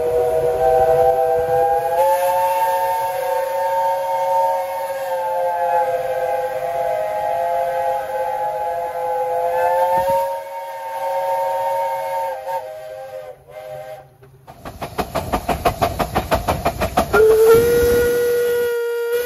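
A chime steam whistle blowing one long chord of several notes at once. Its pitch lifts slightly about two seconds in, and it stops about two-thirds of the way through. Then a steam locomotive chuffs quickly, about four beats a second, with a single-note whistle blowing over it near the end.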